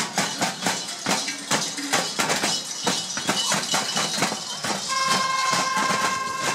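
Large Perchten bells on the backs of straw-costumed runners clanging rhythmically as they shake them, several clangs a second. About five seconds in, a steady ringing tone comes in over the clanging.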